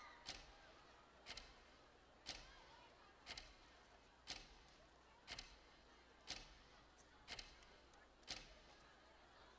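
Alarm clock ticking, quiet and steady, one sharp tick about every second.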